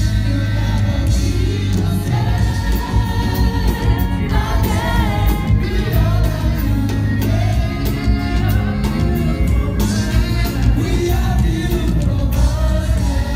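Live gospel worship music: singing backed by a band with heavy bass and drums.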